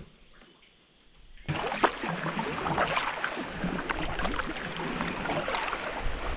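Paddling a pack canoe with a double-bladed paddle: water splashing and dripping off the blades, with many small irregular splashes and a low wind rumble. The first second and a half is nearly quiet, and the paddling sound starts abruptly.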